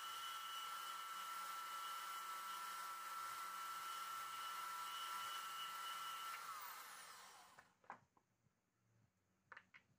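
Milwaukee portable band saw running with a steady whine as its blade cuts through a small steel rod. About six seconds in the motor shuts off and winds down with a falling pitch. Then come a few light clicks.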